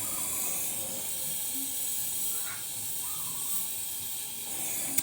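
Electric arc welding on the cover of a rice huller: a steady high-pitched hiss of the arc.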